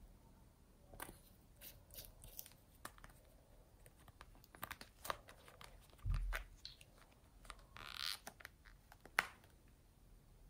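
Faint, scattered clicks and taps of small plastic bottles, caps and a pen being handled over a glass tray of slime, with a low thump about six seconds in and a short scratchy rustle about eight seconds in.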